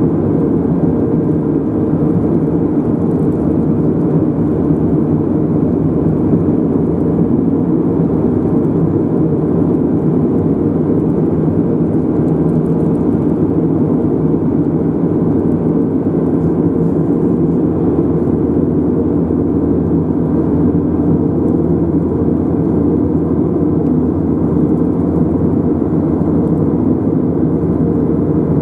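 Steady drone of road and engine noise from a car driving along a road, unbroken and even in level throughout.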